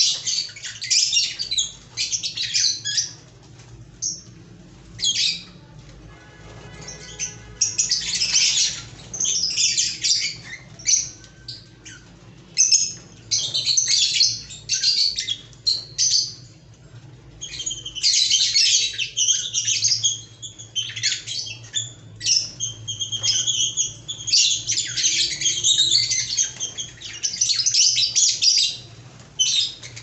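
A flock of caged lovebirds chattering, with shrill high-pitched squawks and chirps coming in dense bursts, broken by a few short lulls.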